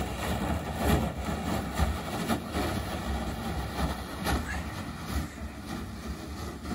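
Wind buffeting the microphone in a low rumble, with scraping and crunching in snow as a plastic kayak is dragged away over it.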